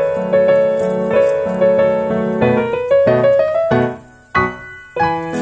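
Background piano music: held notes for the first few seconds, then a brief quieter gap about four seconds in, followed by short, separated notes.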